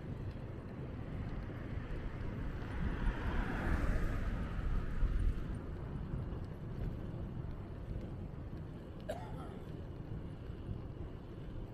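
Wind rumbling on the microphone of a camera carried on a moving bicycle. A vehicle passes, its noise swelling and fading about three to five seconds in, and a brief squeak comes about nine seconds in.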